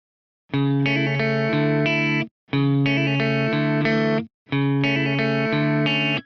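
Background music: after half a second of silence, three short phrases of pitched instrumental music, each about two seconds long and cut off by a brief gap.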